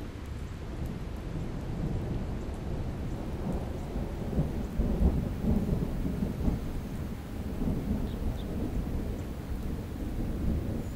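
A low, rolling rumble that swells about four seconds in and eases off toward the end, over a faint steady hiss.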